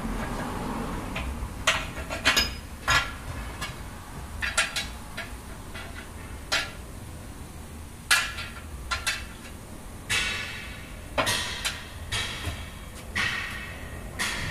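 Steel tyre levers knocking and clinking against the steel rim of a tractor wheel as the tyre bead is levered onto it. The clinks come irregularly, and a few ring briefly.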